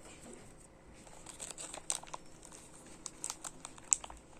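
Light, irregular crinkling with scattered sharp clicks, as something is handled on a table; one click about four seconds in stands out from the rest.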